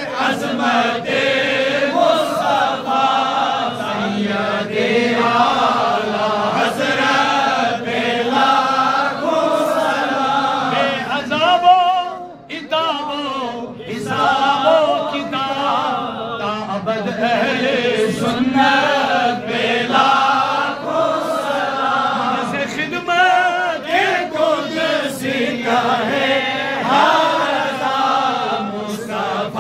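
A group of men singing an Islamic devotional chant in unison, led by one voice carried over microphones. The singing goes on throughout, with a brief break about twelve seconds in.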